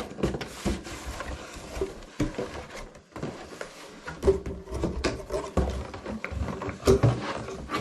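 Metal detector's cardboard box being opened and its packaging handled: irregular knocks, taps and scrapes, with two sharper knocks about four and seven seconds in.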